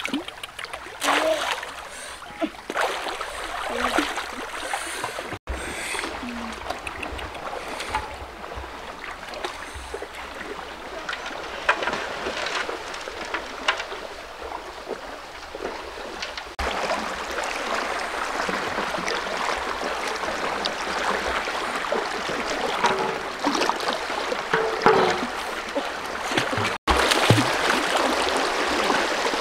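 River water rushing and splashing as a person wades through it, pushing a large metal pan along with a bamboo pole. The water grows louder about halfway through and again near the end, and the sound cuts out for an instant twice.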